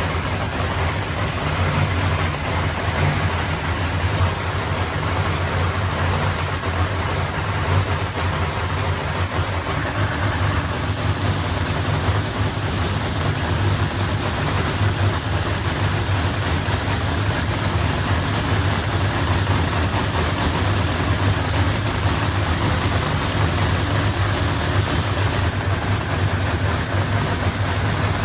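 Proline Hemi drag-racing engine idling steadily, a deep even rumble that holds unchanged throughout.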